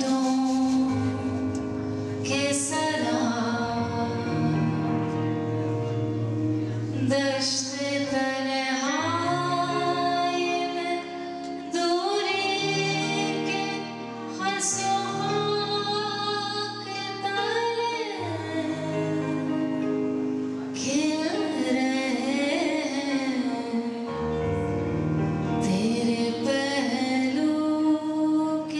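A song: a singer's voice with sliding, wavering held notes over instrumental accompaniment with sustained bass notes.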